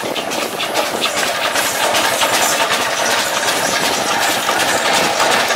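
8-ton Buffalo-Springfield steam roller under way, its steam engine chuffing in quick, even beats over a steady hiss of steam.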